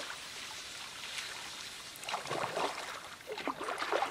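Double-bladed paddle dipping and swishing through calm lake water as a canoe is paddled, with clusters of splashing strokes about two seconds in and again near the end.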